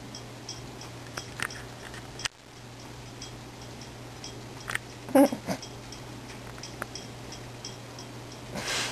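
A cat gives a brief meow about five seconds in, with a smaller sound just after, over a steady low hum and a few faint clicks.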